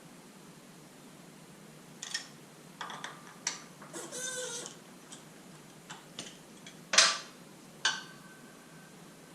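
Metal-on-metal knocks and taps from driving a suspension linkage bearing race into place, using the old race as a driver: a few light clicks and a short scrape, then two sharper knocks near the end, the second ringing briefly.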